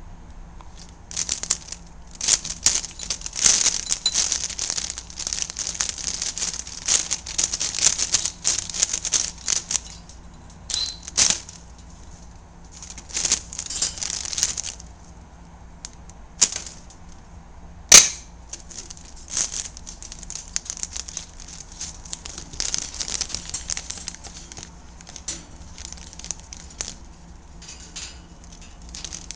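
Plastic bag crinkling and rustling in irregular bouts as a Quaker parrot attacks it, with short pauses between bouts and one sharp click a little past halfway.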